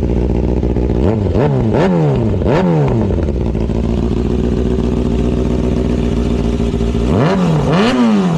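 Motorcycle engine idling, with a quick run of throttle blips about a second in and two more near the end, through a muffler with its baffle removed, which makes it nearly a straight pipe.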